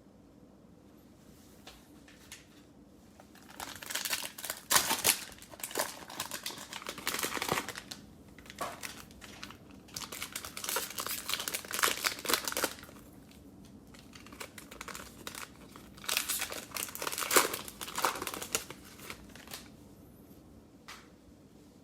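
Crinkling and tearing of a plastic cellophane trading-card pack wrapper being opened by hand, in three bouts of crackling with short pauses between.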